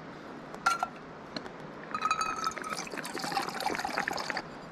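Water poured into a backpacking cook pot: a single light clink, then about two seconds in a gurgling, trickling pour that runs for a couple of seconds and stops shortly before the end.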